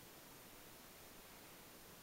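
Near silence: a faint steady hiss in the pause between a sleeping person's snores.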